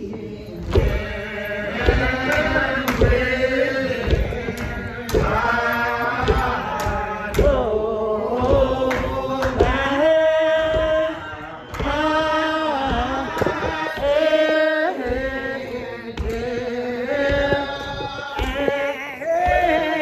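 Voices singing a slow hymn unaccompanied, holding long notes that bend between pitches, with steady thumps about once a second.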